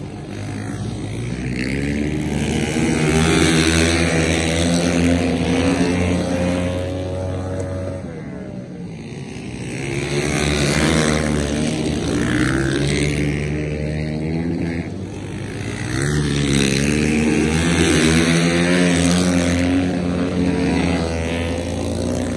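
Flat track racing motorcycles passing, their engines revving and easing off as they go through the turns, the pitch sliding up and down. The sound swells three times as bikes come by and fades between.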